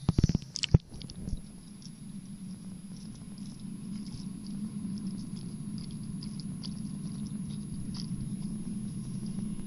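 Splashes and knocks in the first second as an action camera breaks the water surface and goes back under. Then the muffled underwater sound of a touch tank: a steady low hum with scattered faint crackles and ticks.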